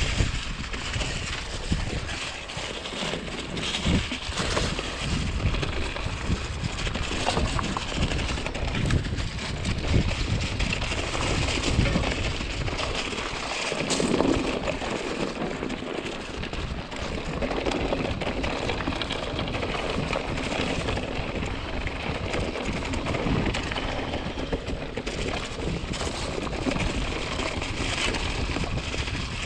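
Mountain bike riding a dirt singletrack: wind rushing over the camera microphone with tyre noise and frequent knocks and rattles from the bike over bumps.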